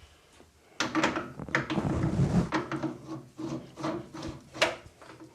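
Scraping and clicking of a small steel part being marked with a scriber and handled. It starts about a second in and stops near the end.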